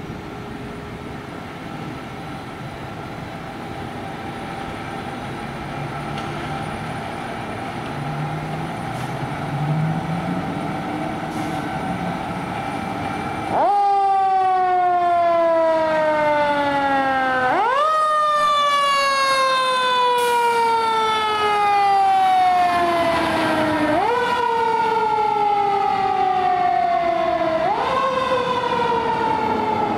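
Fire engine's motor running and building up as it pulls out. About halfway through, its siren cuts in loudly: repeated wails that each rise quickly and slide slowly down, about every four seconds.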